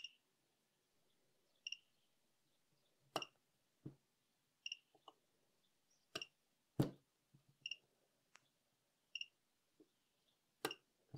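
A budget 18650 spot-welder board beeps faintly and repeatedly, a short high-pitched beep about every second and a half. Over the beeps come a few sharp clicks as the welding probes press on the nickel strip and the double-pulse weld fires; the loudest click comes about seven seconds in.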